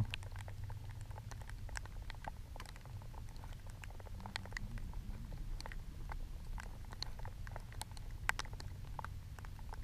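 Raindrops tapping irregularly on the camera, scattered light ticks over a low steady background rumble.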